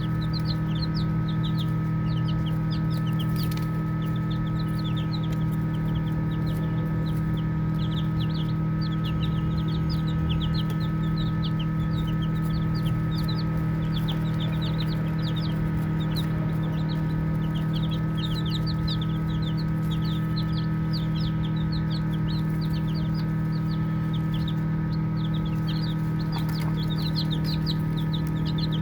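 Baby chicks peeping nonstop, many short high chirps overlapping one another, over a steady low hum.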